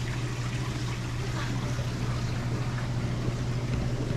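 Saltwater aquarium systems running: a steady low hum with water trickling and splashing through the tank filtration.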